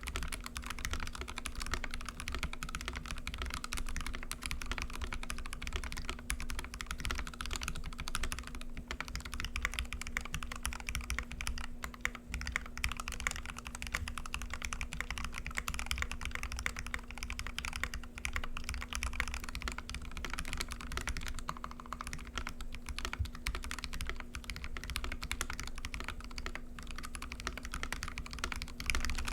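Continuous fast typing on a KBD67 custom mechanical keyboard with a brass plate, lubed Gateron Ink switches and GMK keycaps, a dense run of keystroke clicks and clacks. A steady low hum sits beneath the typing.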